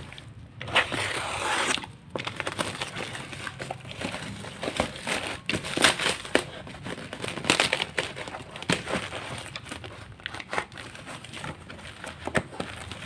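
Packaging of a motorcycle body wiring harness being handled and unwrapped: irregular crinkling and rustling with many short crackles.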